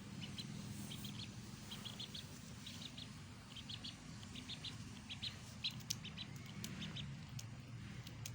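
Duckling peeping: short high peeps in quick clusters of two to four, about one cluster a second, over a low steady hum.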